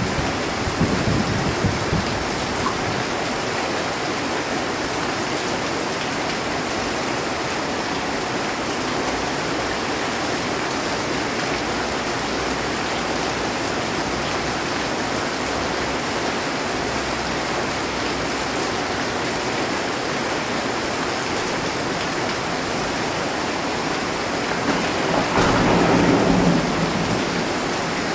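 Heavy rain falling steadily on a metal roof, with a rumble of thunder swelling and fading about 25 seconds in.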